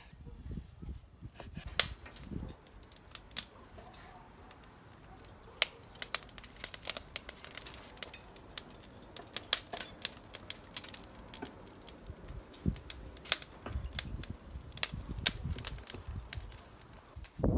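Kitchen knife cutting raw pork into chunks on a wooden chopping board: irregular sharp knocks of the blade against the board, thickest in the middle stretch, with a few soft low thumps.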